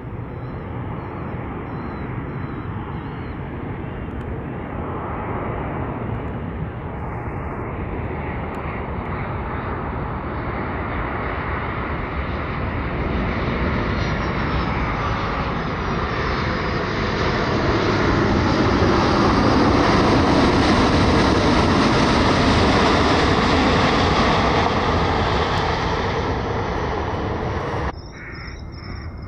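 Boeing 737 jet airliner landing: the engine noise builds as it comes in and passes, a whine sliding down in pitch as it goes by, then the sound drops suddenly near the end.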